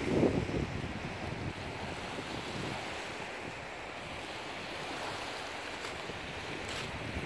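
Small lake waves lapping and washing onto a pebble beach, with wind blowing across the microphone. A gust buffets the microphone loudest in the first half-second.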